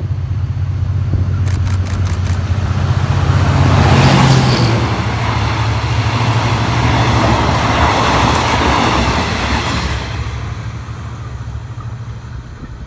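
GE diesel-electric locomotive hauling a passenger train past at speed: the engine's low drone builds and is loudest about four seconds in as the locomotive goes by. The coaches' wheels then rumble over the rails, and the sound fades near the end as the train recedes.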